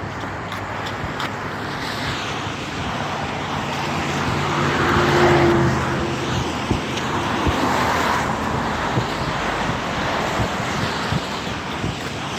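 Road traffic: vehicles passing, a rushing hiss that swells to its loudest about five seconds in and again near eight seconds, over a steady low engine hum.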